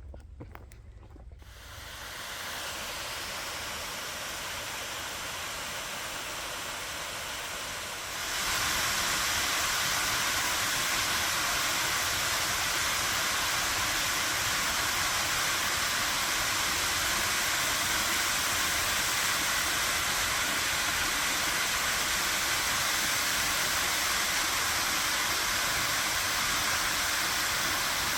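Waterfall rushing with a steady hiss of water, jumping abruptly louder about eight seconds in.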